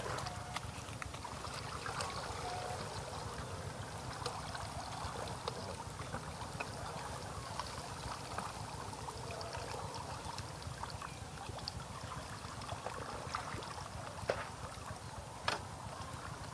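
Pond water sloshing and trickling as a person wades chest-deep, over a steady low rumble, with scattered small splashy clicks and two sharper clicks near the end.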